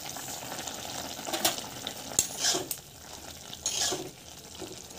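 Bamboo-shoot curry simmering in a kadai with a steady sizzle as ground fried rice goes in to thicken it. From about a second and a half in, a spoon stirs and scrapes against the pan in several short strokes.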